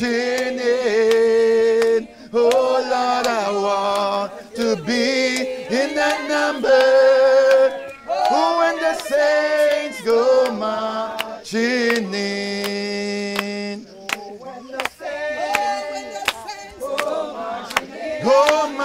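A group of voices singing a gospel hymn without instruments, a man's voice to the fore, with long held notes.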